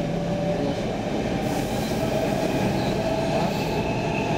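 Stockholm metro C14 train running along the track, heard from inside the car: a steady rumble with a thin, slightly wavering whine over it.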